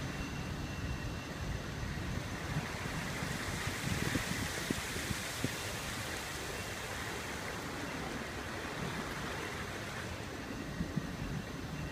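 Wind and open-sea water noise: a steady rush with irregular low buffeting, and a brighter hiss that swells around four to five seconds in.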